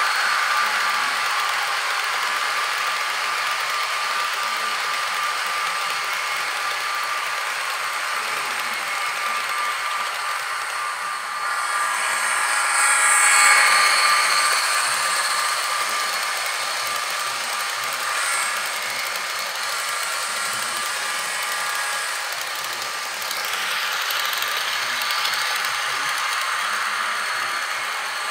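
Model freight train running on plastic-roadbed sectional track: a steady whir and clatter of the locomotive motors and the wheels, getting louder for a few seconds about 13 seconds in as a locomotive passes close by.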